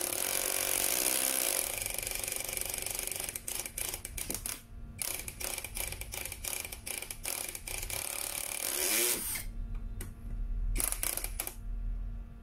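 Toyoko 16.8 V cordless screwdriver's motor whirring as it drives a small screw into wood. A few seconds in, its clutch, set to the lowest of its 20 settings, slips and clicks rapidly in uneven runs as the screw seats. The motor spins up again briefly about nine seconds in, then the clicking resumes near the end.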